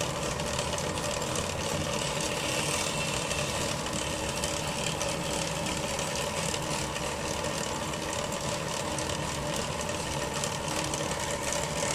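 Covered pot of rice boiling on a stove burner: a steady hiss with fine bubbling under the glass lid.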